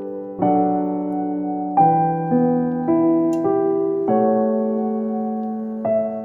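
Background piano music: slow, sustained chords, a new chord struck every second or so.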